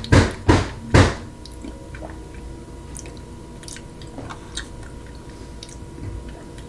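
Eating yogurt close to the microphone: three loud knocks in the first second, then quiet wet mouth clicks and smacks.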